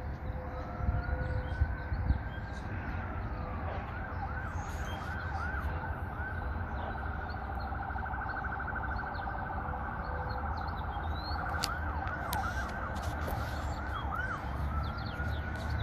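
Fire engine siren in the distance, cycling through its modes: a slow wail, then a fast yelp, then a very rapid warble around the middle, back to the yelp, and a slow rising wail again near the end. A steady low rumble runs underneath.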